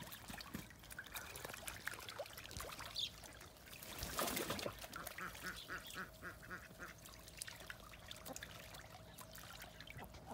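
Ducks on a pool: a brief splash about four seconds in, then a quick run of quacks, about seven in a second and a half, over a faint water trickle.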